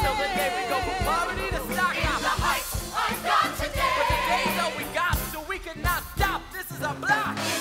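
Musical theatre singers holding notes with vibrato over a band with drums.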